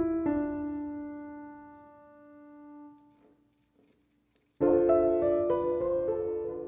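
Background piano music: a chord rings and slowly fades, then after a short pause, more piano notes begin about four and a half seconds in.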